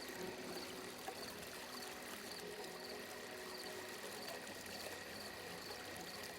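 Quiet, steady trickle of flowing water from an ambient sleep soundscape, with a faint high chirp repeating about every half second.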